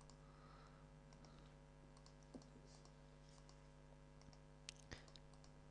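Near silence: a low steady electrical hum, with a few faint clicks from working the computer, one about two and a half seconds in and two close together near the end.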